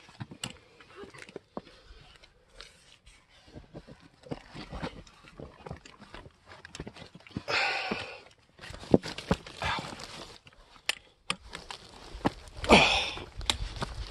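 A hiker's footsteps, scuffs and knocks on rock while scrambling up a steep rocky stretch, with two loud rushes of noise lasting about a second each, one about halfway through and one near the end.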